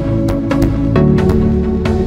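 Trance music from a software synthesizer played on a MIDI keyboard: a steady electronic beat under sustained bass and chord tones, the chord changing about a second in.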